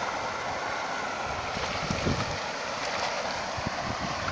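Steady wind noise on the microphone over moving water, with a few faint short sounds about two seconds in.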